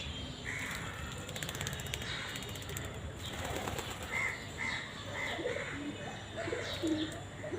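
Mynas and pigeons calling: a run of short, evenly repeated chirps about four seconds in, then a few low cooing notes near the end.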